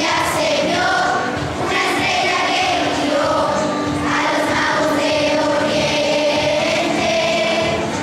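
Children's choir singing in unison, held notes over instrumental accompaniment.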